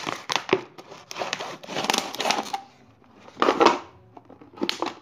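Kitchen knife sawing through a thin plastic soda bottle near its neck, in several rough scraping strokes with short pauses between.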